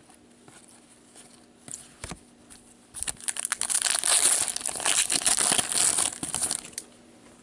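Shiny foil wrapper of an Upper Deck Series 1 hockey card pack being torn open and crinkled by hand. A few light rustles come first, then loud crinkling from about three seconds in that lasts nearly four seconds.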